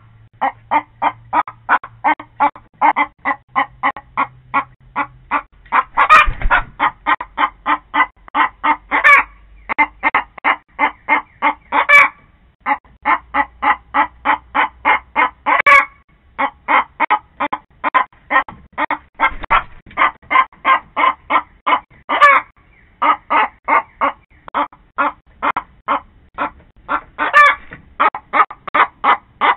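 A hen cackling: a fast run of short clucks, about three a second, broken every few seconds by a louder, drawn-out squawk.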